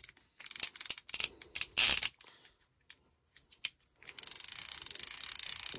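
Okuma Magda Pro 20 DXT line-counter trolling reel being handled and cranked: a few scattered clicks and rattles, a short pause, then from about four seconds in a steady fast ratcheting whir as the handle is turned to reel line in.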